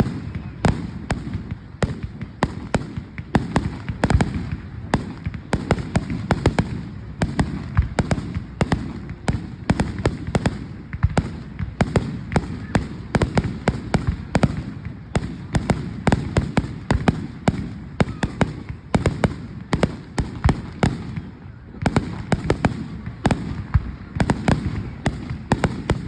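Fireworks going off in a continuous barrage: many sharp bangs and crackles each second over a steady low rumble, with a brief lull about three quarters of the way through.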